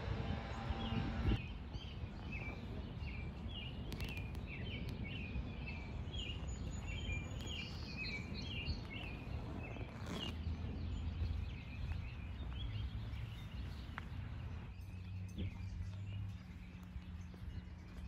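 Small bird chirping a rapid string of short, repeated notes for roughly the first half, then fading, over a low steady outdoor rumble.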